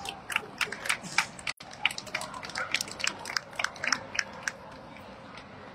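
Irregular sharp clicks, several a second, over the steady background of a large hall, stopping about a second before the end.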